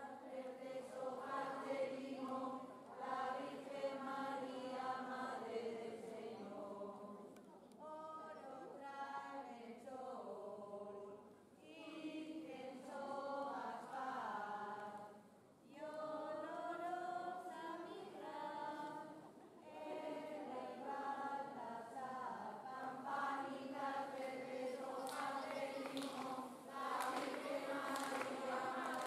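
A group of voices singing together without instruments, in phrases of a few seconds with short breaks between them.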